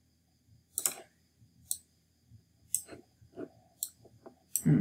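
Scattered clicks at a computer, a handful of short sharp clicks roughly a second apart.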